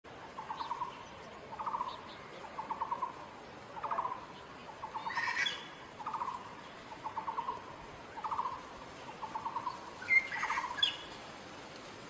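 Taiwan blue magpie calling: a steady series of short, rattling notes, about one a second, with two higher, harsher calls mixed in, around five seconds in and again about ten seconds in.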